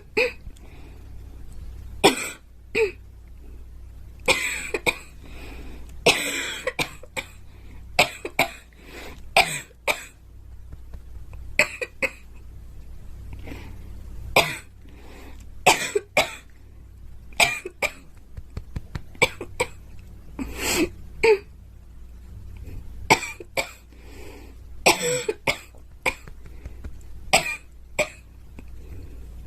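A girl coughing over and over: short, sharp coughs, often in pairs or quick runs of three or four, with gaps of a second or two between runs.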